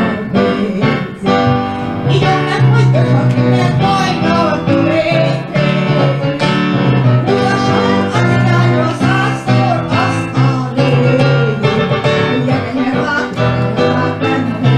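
A woman singing a Hungarian magyar nóta into a microphone, with a wavering vibrato, accompanied by chords on an electronic keyboard.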